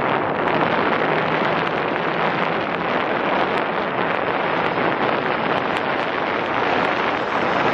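Steady jet airliner engine noise, mixed with wind on the microphone.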